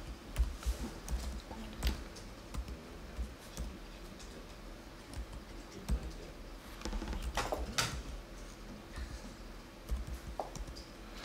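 Typing on a computer keyboard: irregular, scattered keystrokes as numbers are entered.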